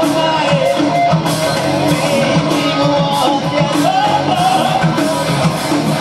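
Live heavy metal band playing an instrumental passage: distorted electric guitars, bass and drums, with a lead line bending up and down in pitch over a steady drum beat.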